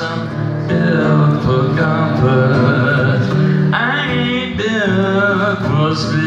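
A man singing live while strumming an electric guitar, the voice wavering and bending in pitch over the guitar chords.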